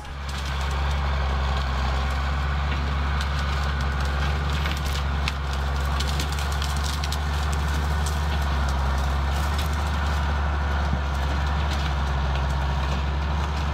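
Steady low hum with hiss and scattered crackles: an old film-reel sound effect.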